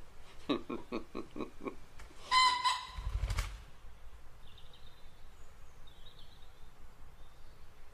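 Outdoor ambience: a short run of what sounds like laughter, then a short pitched bird call and a low thump, followed by faint bird chirps over a quiet background.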